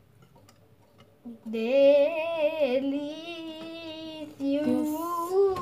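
A voice singing a drawn-out, wavering tune in long held notes, starting about a second and a half in. Before it, a few faint taps of a wire whisk against a glass bowl.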